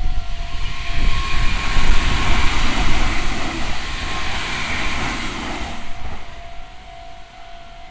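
Meitetsu 3500-series and 3100-series electric train running through a level crossing: a heavy rumble of wheels on rail with a wide hiss, fading away about six seconds in. Under it the crossing's Meitetsu-type electronic warning bell keeps sounding, heard plainly again once the train has gone.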